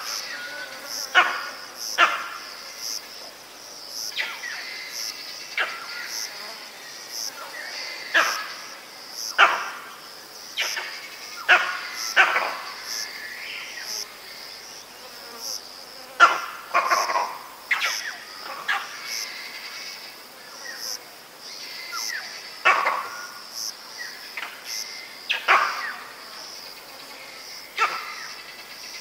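A vervet monkey, mainly one animal close up, giving its leopard alarm call: short, sharp barks repeated about once a second, some in quick pairs. A steady high-pitched drone runs underneath.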